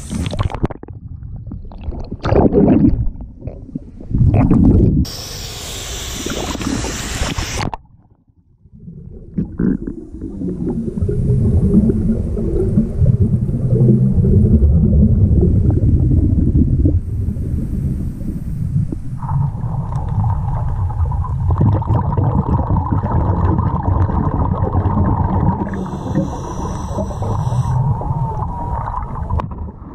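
Water splashing and hissing at the surface for the first several seconds, then a steady muffled rumbling and gurgling heard underwater, with a wavering hum joining about two-thirds of the way through.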